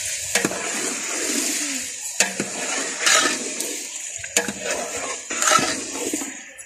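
Chicken pieces frying in ghee in a large steel pot, a steady loud sizzle, with a steel ladle scraping and knocking against the pot several times as the meat is stirred and browned.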